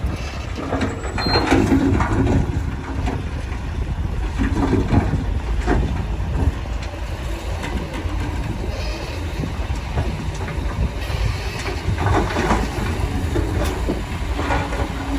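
A Komatsu crawler bulldozer's diesel engine runs with a steady low rumble. Its steel tracks and blade give off irregular metallic clanks and short squeals as it works the road.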